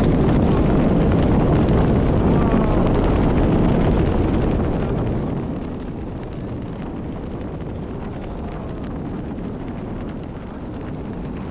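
Wind rushing and buffeting over the microphone during a tandem parachute descent under an open canopy. It is louder for the first five seconds or so, then drops to a lower steady rush.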